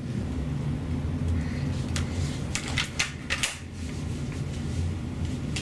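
A low steady hum with a handful of light clicks and knocks, clustered between about two and three and a half seconds in.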